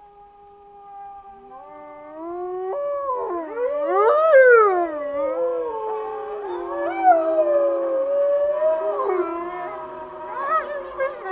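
Wolves howling in chorus. One long, steady howl is joined from about two seconds in by several more voices that rise and fall and overlap, loudest about four seconds in.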